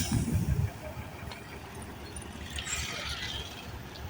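Diesel bus engine running at low revs with a low, pulsing rumble. It is louder for the first half-second or so, then settles lower.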